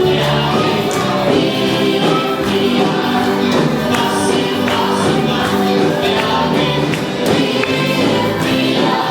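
A vocal group singing a gospel song in harmony with band accompaniment and a steady beat.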